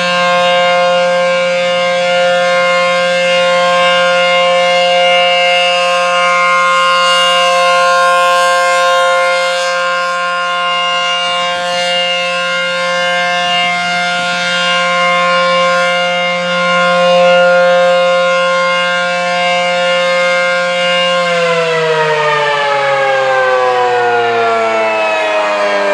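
ACA tornado siren sounding the steady Alert signal, holding a steady pitch, then winding down in a long falling pitch from about 21 seconds in as the signal ends.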